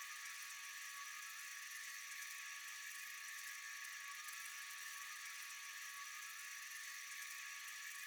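Steady chorus of night insects: a continuous, unchanging high-pitched hum and trill.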